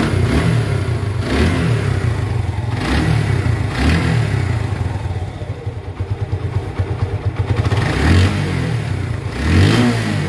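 Freshly repaired Suzuki Gixxer SF single-cylinder engine idling, with about five short throttle blips that raise the revs and fall back. The mechanic expects the sound to get smoother once the engine has broken in.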